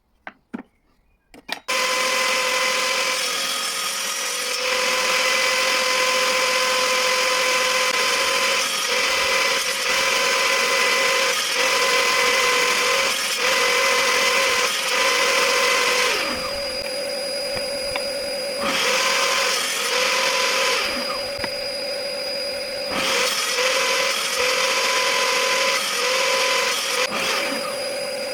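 Bosch GTS table saw starting up after a few clicks, then running with a steady high whine while cutting oak barrel staves on a crosscut sled. Several times its pitch briefly dips.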